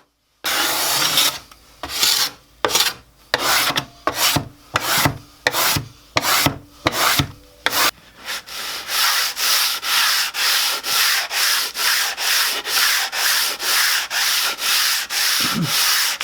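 Hand scraping and sanding strokes on a wooden tabletop, stripping off old, flaking polyurethane finish. The strokes come singly and unevenly at first, then turn into quicker, regular back-and-forth rubbing, about three strokes a second.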